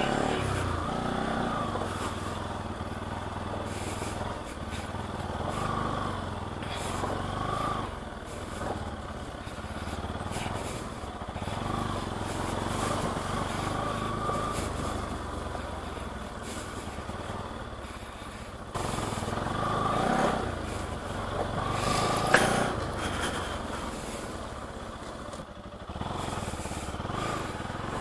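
Bajaj Pulsar NS200's single-cylinder engine running steadily while the motorcycle rides along a slushy, slippery road. The sound swells briefly a couple of times about two-thirds of the way through.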